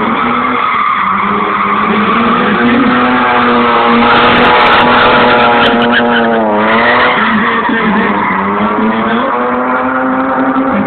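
Drift car's engine held at high revs while its tyres squeal and skid through a slide. The engine pitch dips briefly about six and a half seconds in, then climbs back.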